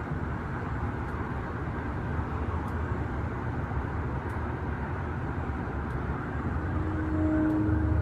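Steady low rumbling hum of unknown origin, heard outdoors and seeming to come from the sky, with a faint steady tone joining it about seven seconds in.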